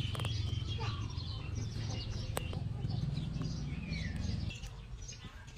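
Small birds chirping and twittering in the background, over a low steady rumble that drops away about four and a half seconds in, with a few sharp clicks.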